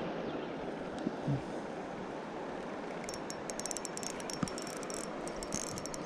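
Steady rush of river water. From about halfway, a run of quick, high clicks from a Pflueger President XT spinning reel being worked.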